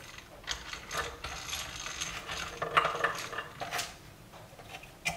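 Hand-cranked eggbeater drill turning, its gears whirring and clicking as a small bit enlarges the resistor holes in a speaker crossover circuit board.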